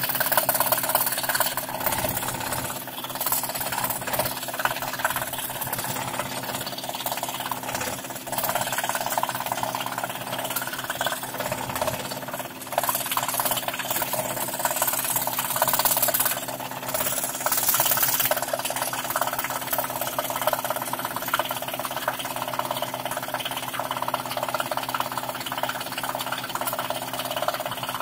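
Scroll saw running steadily, its fine reciprocating blade cutting through plywood: a continuous motor hum under a dense rasping cutting noise.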